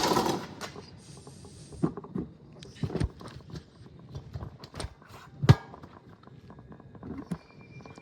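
Scattered knocks and clicks, the loudest about five and a half seconds in, after a short burst of noise right at the start.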